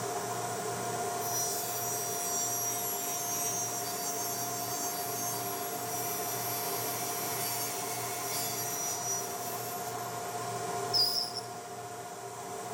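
A tool working a piece of wood, giving a steady rubbing, scraping sound over a constant hum, with a brief sharp knock and squeak near the end.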